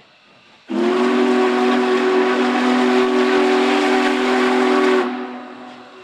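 Union Pacific Big Boy 4014's steam whistle blows one long blast of about four seconds. It is a loud chord of several steady tones over a hiss of steam, and it tails off near the end.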